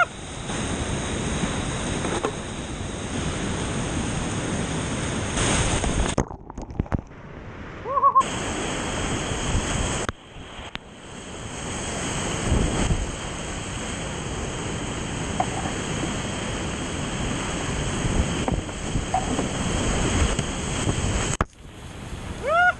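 Whitewater rapids rushing and splashing around a kayak, heard close on a boat-mounted action camera with some wind on the microphone. The rush goes dull and muffled twice, around six seconds in and again near the end, as water washes over the camera.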